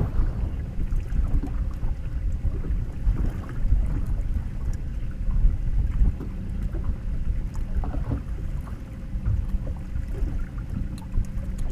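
Uneven low rumble of wind on the microphone out on the open water, with a faint steady hum underneath.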